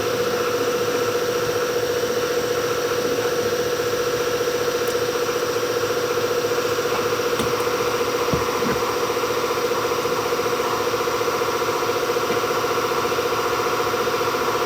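A motor running steadily with a constant whine and hum, switched on abruptly just before; a few faint knocks around the middle.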